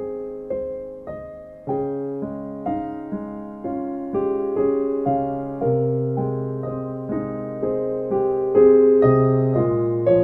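Piano music without singing: single notes and chords struck at an unhurried pace, each ringing and fading before the next, growing somewhat louder in the second half.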